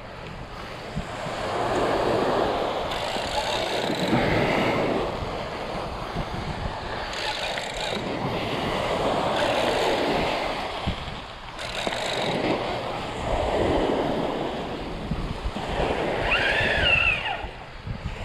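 Surf washing onto the shore in repeated swells, every few seconds, with wind buffeting the microphone. A brief high call rises and falls near the end.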